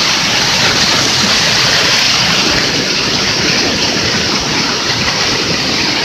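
Waterfall pouring onto rocks and into a pool close by: a loud, steady rush of falling water.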